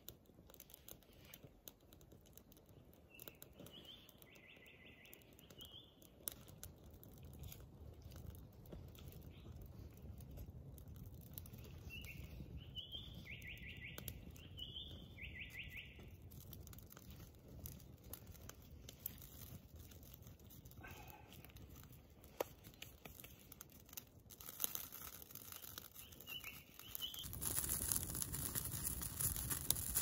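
Wood campfire crackling with scattered small pops, while a bird sings short phrases of stepped notes a few times. Near the end the fire sounds louder and fuller.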